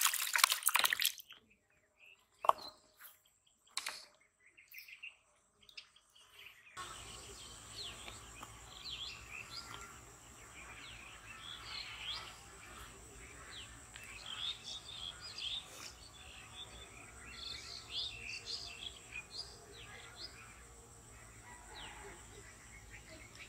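Water splashing as a freshly caught fish thrashes in a plastic basin, for about the first second. After a few quiet seconds with scattered small knocks, many birds chirp and call, over a steady high tone.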